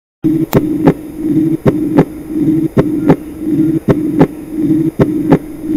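Heart sounds of aortic regurgitation: paired lub-dub beats, about one a second, with a blowing murmur that is loudest just after the second sound of each pair and fades through the longer pause before the next beat. This is the early diastolic decrescendo murmur of a leaking aortic valve.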